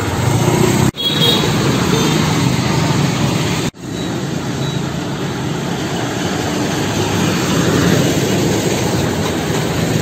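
Motor vehicles passing close by on a street: engine and tyre noise, broken by two brief dropouts at cuts, about one second in and just before four seconds.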